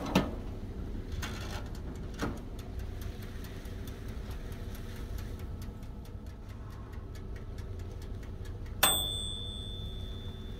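A toaster oven's door clacks shut, then its wind-up mechanical timer ticks quickly and steadily for about six seconds before its bell gives one bright ding that rings on and fades.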